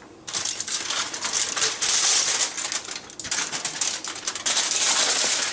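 Aluminium foil crinkling and crackling as a foil tent is peeled back off a cooked chicken and crumpled in the hand. It is a dense run of many small crackles, with a brief lull about three seconds in.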